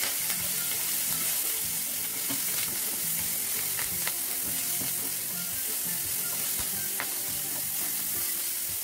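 Chopped onions, curry leaves and green chillies sizzling steadily in hot oil in a nonstick pan while a wooden spatula stirs them, with a few light taps of the spatula against the pan.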